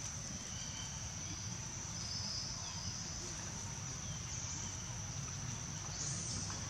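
Insects droning steadily at a high pitch, a little louder near the end, over a low outdoor rumble.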